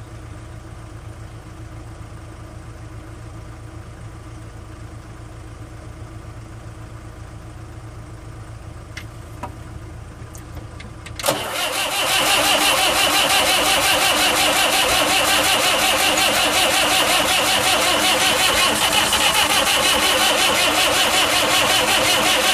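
Starter motor cranking the Saviem SG-2's replaced diesel engine, starting suddenly about halfway through and turning over steadily and loudly for about twelve seconds without the engine catching. The engine won't start, which the owner suspects comes from a mistimed injection pump. Before the cranking, a low steady hum.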